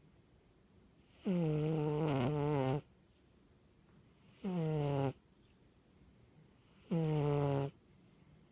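Snoring in three drawn-out, tonal snores a couple of seconds apart, with quiet breathing between. The first snore lasts about a second and a half and the other two under a second. Each one starts with a quick drop in pitch and then holds a steady tone.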